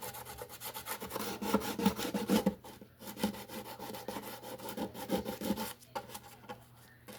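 Rapid back-and-forth rubbing strokes of a hand abrasive tool on the mandolin's wooden body, smoothing the rough edges of freshly epoxy-filled cracks. The strokes pause briefly about two and a half seconds in and grow fainter near the end.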